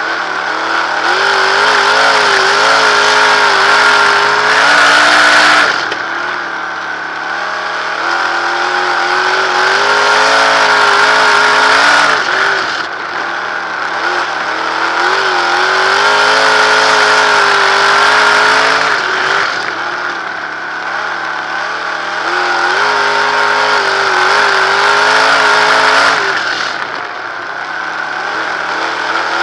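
On-board sound of a 360 sprint car's V8 engine lapping a dirt oval, rising in pitch and loudness on the straights and dropping back as the driver lifts for each turn, about once every seven seconds.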